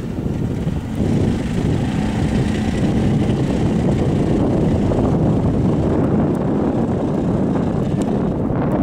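Arctic Cat Prowler UTV engine running steadily under load as the machine plows through deep snow, getting louder about a second in and then holding level.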